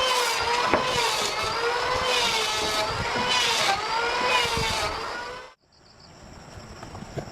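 An engine running with a steady, slightly wavering whine, cut off abruptly about five and a half seconds in.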